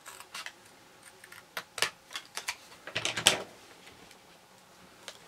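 Paper scissors snipping a strip of paper: a string of short, crisp cuts and clicks, the loudest cluster about three seconds in.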